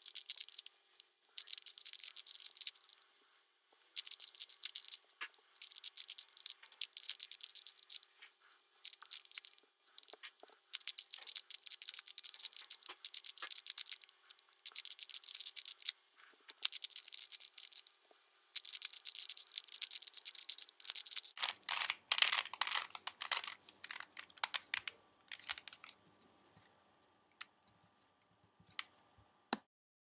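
Plastic Rubik's cube being turned rapidly by hand, sped up: a dense, fast run of clicks and rattles from the layers snapping round. The turning thins to a few scattered clicks after about 26 s and stops just before the end.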